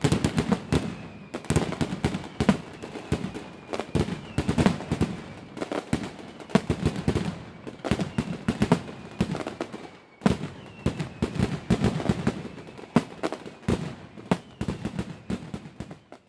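Fireworks going off in a dense, rapid barrage: a steady stream of sharp bangs and crackling bursts several times a second, with brief lulls, as in a show's finale.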